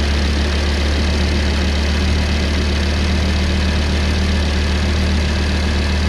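Audi RS3's freshly rebuilt 2.5-litre turbocharged five-cylinder (DAZA) engine idling steadily, with the air conditioning switched on.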